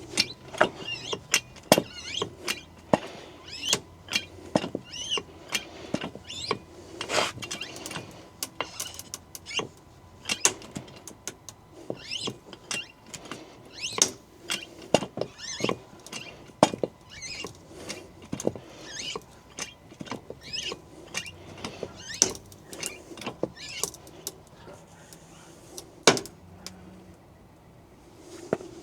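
Hand-pumped hydraulic ram kit being worked to push out a car's A-pillar panel: many sharp clicks and short squeaks, one or two a second, as the pump lever is stroked and the ram and bracing come under load.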